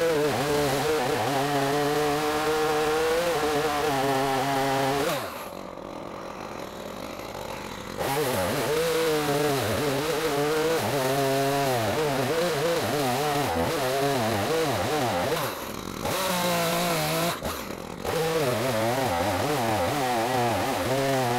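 Two-stroke chainsaw running and cutting wood, its engine pitch wavering as it bogs and picks up under load. About five seconds in the throttle is let off and the engine falls away to a lower idle, then it is revved back up about three seconds later. It eases off briefly twice more near the end.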